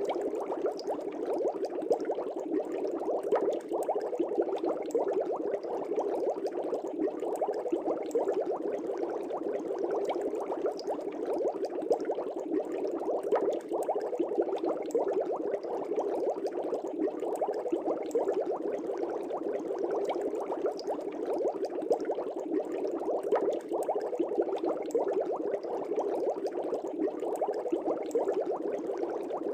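Aquarium air bubbles streaming and bubbling steadily at the water surface, a continuous dense patter of small bubble pops.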